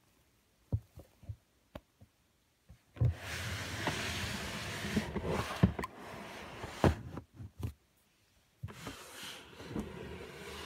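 Handling noise from plastic snake tubs in a rack: a few light taps and knocks, then about three seconds in a long scraping, rustling slide with knocks in it. It breaks off briefly near the end and starts again.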